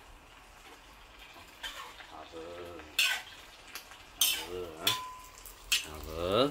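Metal spatula scraping and knocking against a wok as fried fish pieces are pushed into a simmering tomato and salted-vegetable base, over a light sizzle. There are sharp clinks about three, four and five seconds in.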